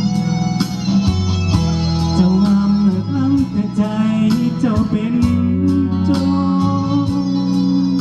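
Live band playing an instrumental passage of a pop song: guitar leading over bass and a steady drum beat.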